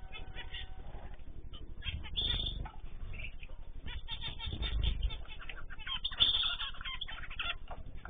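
A mixed flock of small cage birds (zebra finches, canaries, goldfinches and cockatiels) chirping and calling over one another in quick, short notes, with low rumbles about two and five seconds in.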